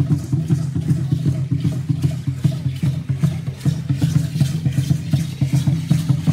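Aztec-style ceremonial dance drumming: a deep drum beaten in a fast, steady rhythm of several strokes a second, with a dry rattling shimmer over it like dancers' ankle rattles.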